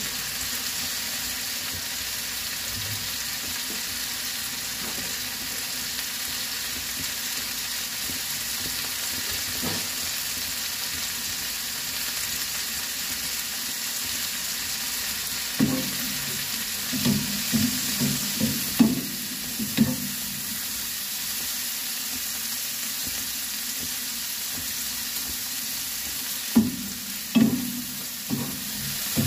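Sliced vegetables sizzling steadily in oil in a frying pan. About halfway through, and again near the end, a wooden spatula stirs them, with a run of short knocks and scrapes against the pan.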